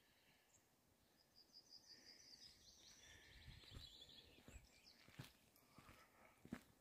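Faint distant birdsong: quick chirping trills for a couple of seconds, then a few soft footsteps near the end.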